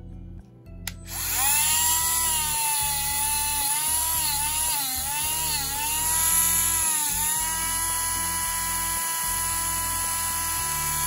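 Handheld rotary tool with a radial bristle disc sanding a copper and silver pendant. It spins up about a second in to a high whine that sags and wavers in pitch while the disc is pressed against the metal, then holds steady.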